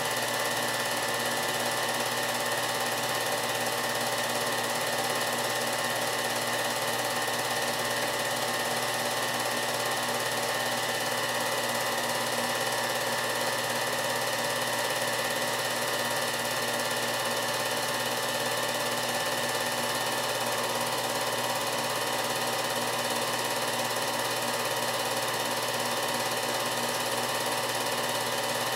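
Home-movie film projector running: a steady mechanical whir with a fixed set of tones.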